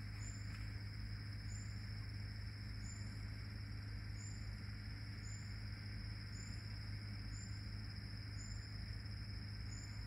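Insects droning in a steady high-pitched hum, with a short high chirp repeating about once a second, over a steady low hum.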